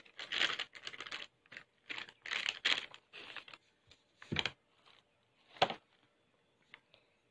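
Rustling and scraping of dry baking mix being tipped from a packet and worked by hand in a stainless steel bowl, in a run of short bursts. Then two sharp knocks about a second apart.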